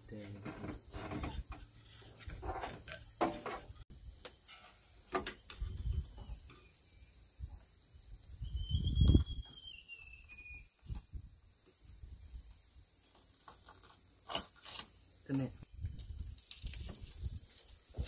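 Irregular clicks, scrapes and crackles of a shattered windshield being worked free from a backhoe cab's rubber seal with a hand tool, with one heavy low thump about nine seconds in. A steady high-pitched chorus of crickets runs underneath.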